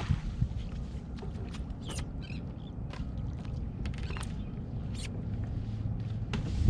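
Wind and water noise around a small boat, a steady low rumble with scattered light clicks and taps.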